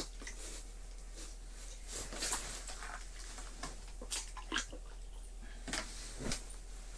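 A freshly caught walleye being handled and released down a flooded ice hole: a handful of short, scattered knocks, slaps and splashes on the wet floor mat and at the hole.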